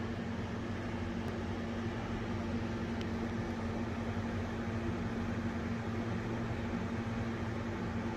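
Wall-mounted exhaust fan running: a steady low motor hum under an even rush of moving air.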